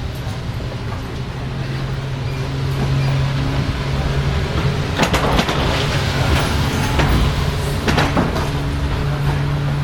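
Steady low machine hum with a droning tone, growing louder about three seconds in, typical of the walk down a jet bridge during boarding. A few sharp clattering knocks stand out, about five seconds in and again near eight seconds.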